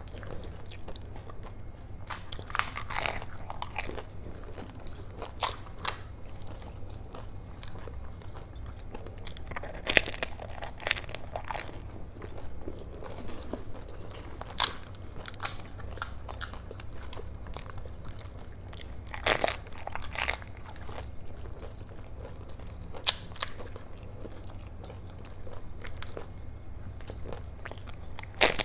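Pani puri eaten close to the microphone: the crisp, hollow puri shells, filled with spiced water, crack and crunch as they are bitten, with chewing between, in short bursts every few seconds. A steady low hum runs underneath.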